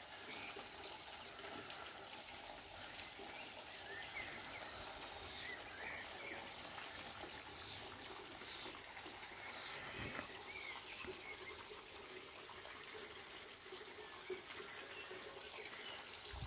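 Faint steady trickle of water at a garden fish pond, with a few faint high chirps over it.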